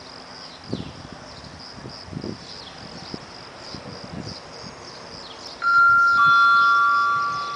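Railway station public-address chime: two sustained bell-like notes, the second lower than the first, starting suddenly about five and a half seconds in and far louder than anything before, the signal that opens a platform announcement. Before it, a steady high chirring of insects with a few faint low thuds.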